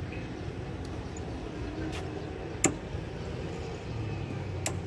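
Steady low rumble of a vehicle, with a few sharp clicks; the loudest click comes a little past halfway.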